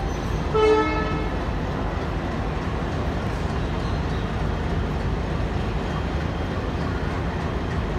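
Moving passenger train heard from aboard: a steady rumble of wheels and coach. About half a second in comes one short horn toot, the loudest sound.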